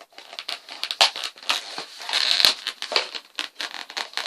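Plastic and cardboard toy packaging crinkling and crackling, with quick irregular clicks and rustles, as an action figure is worked out of its box. A louder stretch of crinkling comes about two seconds in.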